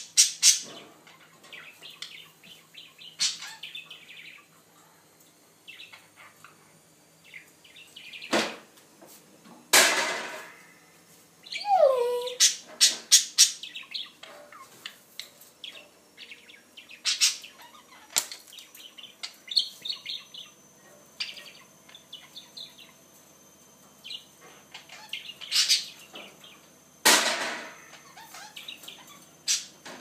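Budgerigar chirping and twittering in short scattered bits, among sharp clicks and taps as it pecks at a small ring toy. A few louder sudden noises stand out, about a third of the way in and again near the end.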